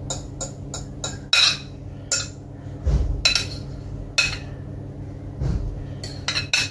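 Metal spoon clinking and scraping against a glass bowl as thick béchamel sauce is spooned out, in irregular sharp clinks, with a steady low hum underneath.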